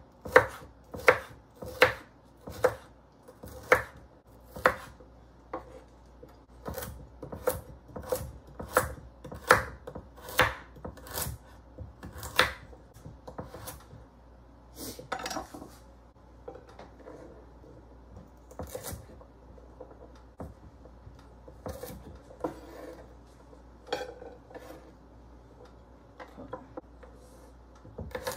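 Kitchen knife chopping vegetables on a wooden cutting board: bitter melon, then carrots, then green beans. The knife strikes the board about once or twice a second, loud and steady for the first half, then lighter and more spread out.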